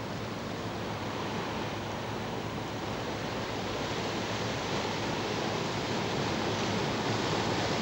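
Sea waves and swell washing, an even rush of noise that grows a little louder toward the end.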